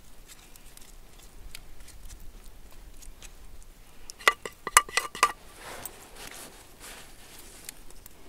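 A wooden spoon knocks against a dish in a quick run of about six ringing clinks about halfway through, followed by a soft scraping of the spoon through the filling. Faint scattered crackles come from the wood fire cooking the fish.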